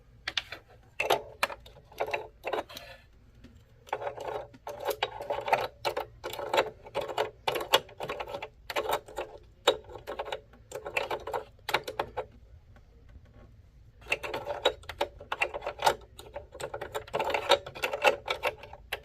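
Irregular clicking and clattering of parts of a Singer heavy-duty sewing machine as they are handled and fitted back on during reassembly after oiling. The clicks come in busy clusters with short quiet gaps.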